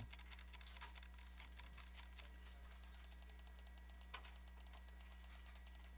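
Faint clicking of a computer mouse and keyboard over a low steady electrical hum. A quick, even run of clicks, several a second, comes from about two and a half seconds in to about five and a half.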